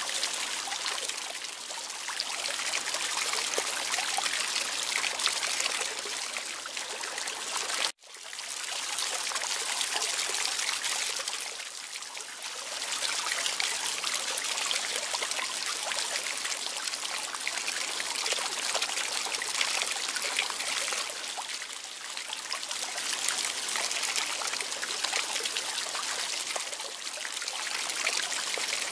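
Steady trickling, running water, an even splashing hiss that breaks off for an instant about eight seconds in and then carries on.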